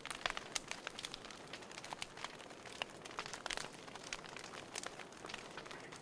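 Wood fire crackling: irregular pops and snaps over a soft steady hiss.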